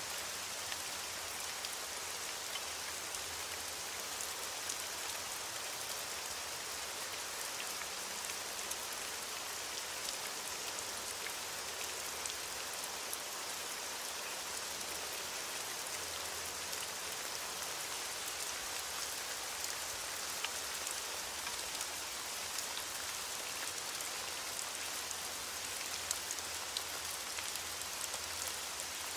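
Steady heavy rain falling, an even hiss with scattered sharp drop ticks.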